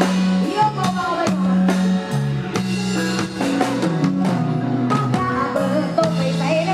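Live band playing an instrumental stretch of a Thai Isan pop song: a drum-kit beat and a bass line with melodic lines on top.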